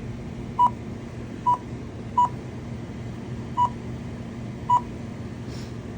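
Keypad beeps from a store register being keyed in to clock in for a shift: five short, high single-pitch beeps at uneven spacing, as from separate key presses, over a steady low electrical hum.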